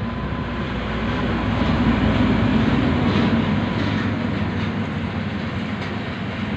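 Steady rumbling background noise with a few faint ticks around the middle.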